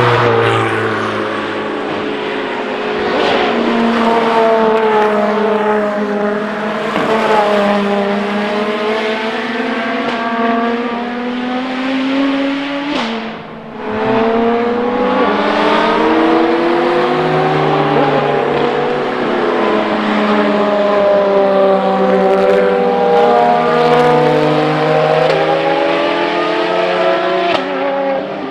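Ferrari FXX K V12 track cars at racing speed, engine pitch climbing under acceleration and dropping on downshifts, over and over as they pass. The sound drops away briefly about halfway through, then picks up again.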